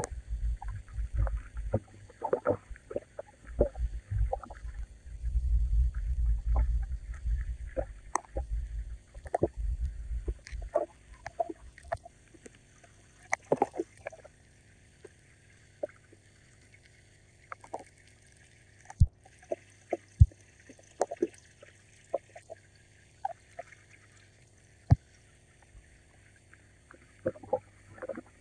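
Garden pond ambience: water moving, with scattered small knocks, pops and splashes. A low rumble comes in bursts through about the first ten seconds, then it turns quieter, broken by a few sharp clicks.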